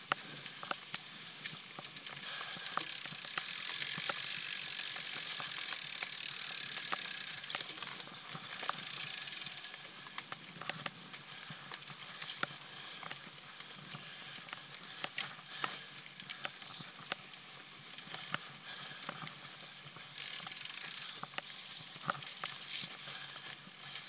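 A mountain bike's rear freehub ratchet buzzes while the bike coasts, loudest for several seconds early on and again near the end. Frequent short clicks and knocks come from the bike rattling over the dirt trail.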